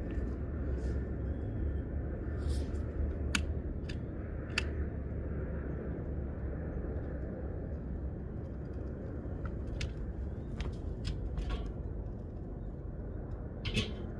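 Light clicks and taps from lighting a charcoal kettle grill with firestarters, scattered irregularly about a dozen times over a steady low outdoor rumble.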